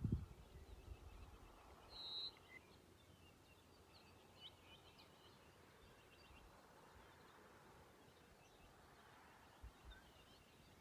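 Faint, scattered bird chirps over near silence, with one clearer short high note about two seconds in.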